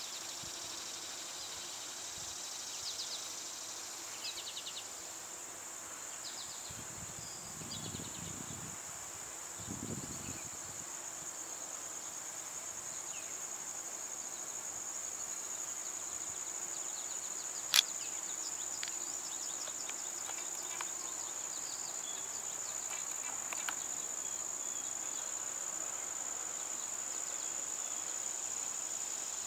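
Steady high-pitched chorus of singing insects, with scattered faint chirps over it. Two short low buzzes come about 8 and 10 seconds in, and a single sharp click about 18 seconds in is the loudest moment.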